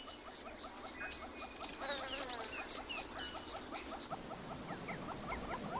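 Wildlife ambience: a steady, high pulsing insect trill over a dense run of short, rapid chirps. The trill cuts off about four seconds in, and the chirping carries on.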